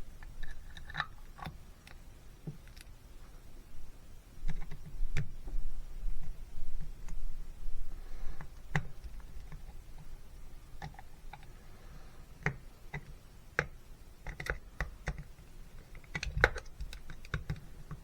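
Light clicks and taps of a small screwdriver and brass slow jets being handled and screwed into a Honda BF25 outboard carburetor, with a run of louder knocks about four to seven seconds in.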